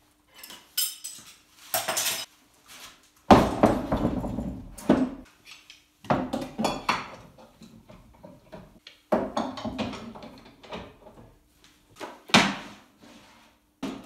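Clanks, knocks and rattles of metal and wood as a drill press table and a plywood jig board are handled and fitted. They come in about half a dozen separate clattery bursts, the loudest about three seconds in.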